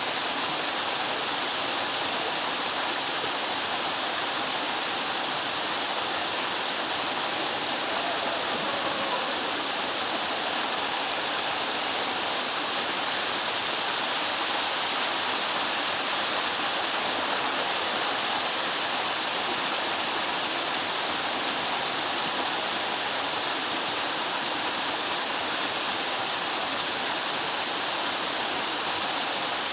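Waterfall pouring, a steady, unbroken noise of falling water.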